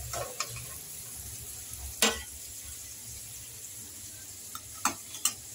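Hot mustard oil sizzling steadily in a kadhai as fried golden-brown onions are scooped out with a metal spoon, with several sharp metallic clinks of the spoon against the pan and bowl, the loudest about two seconds in.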